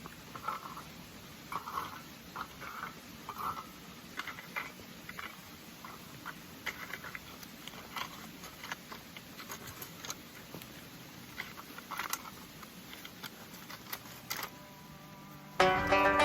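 A rake dragging and scraping chunks of shale across a gravel road in short, irregular strokes, with scattered clicks of stone. Plucked-string music comes in near the end.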